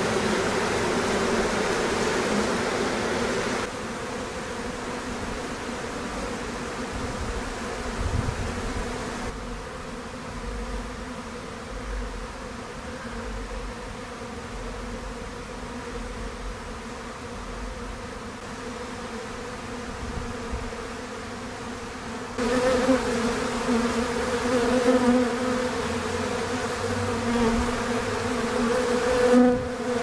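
Honey bees buzzing in flight as a steady, pitched hum. It drops quieter a few seconds in and swells louder again about two-thirds of the way through.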